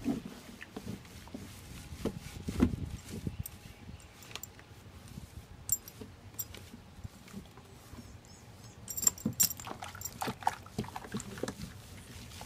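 A small dog being lathered with shampoo in a plastic tub: irregular rubbing, splashing and clinking, busiest about two and a half seconds in and again around nine to ten seconds.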